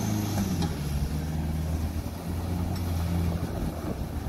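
Off-road 4x4 vehicle's engine running steadily at low revs, a continuous low drone with a slight dip about two seconds in.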